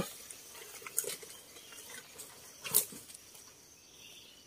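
A few brief rustles and knocks, the loudest just before the three-second mark, with a faint high insect buzz coming in near the end.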